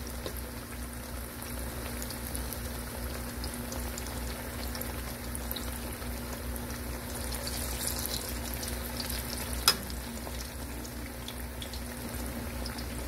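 Ripe plantain slices frying in hot vegetable oil in a pot: a steady sizzle with fine crackling pops. One sharp click comes about ten seconds in.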